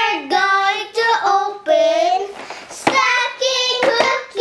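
Young girls singing a short intro tune in high, clear voices, in held notes that slide in pitch, with a few sharp taps about three and four seconds in.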